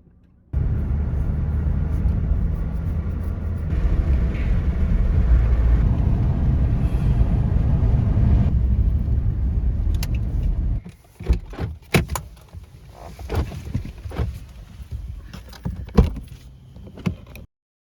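A car's steady low rumble, which cuts off abruptly about eleven seconds in, followed by a scatter of sharp clicks and knocks.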